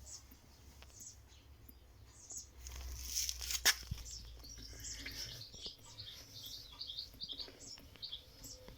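Small birds chirping in quick, high, repeated notes, busiest in the second half, with one sharp click a little after three and a half seconds in.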